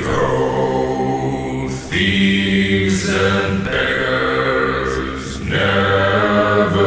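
Background music: chant-like voices holding long notes, with a new phrase starting every few seconds.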